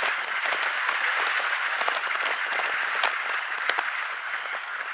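Steady rain pattering, a hiss dotted with scattered drop ticks.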